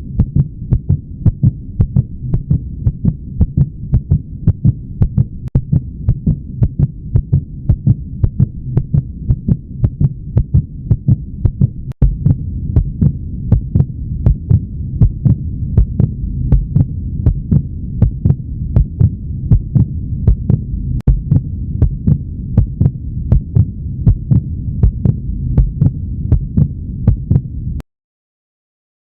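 Human heartbeat: a steady, regular rhythm of low thumps over a low hum. It cuts off suddenly near the end.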